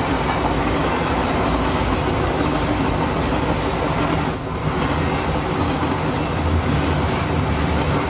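Double-stack container train's well cars rolling steadily past: a continuous rumble of steel wheels on the rails, with some clicking as the wheels pass over rail joints.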